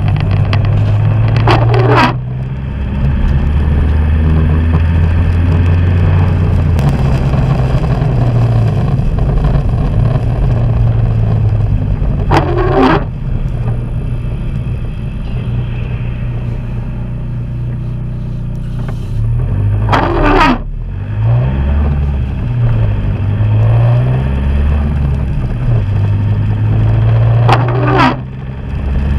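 Vehicle engine running inside the cab while driving, its note shifting up and down. Windscreen wipers sweep across the wet glass four times, about every eight seconds.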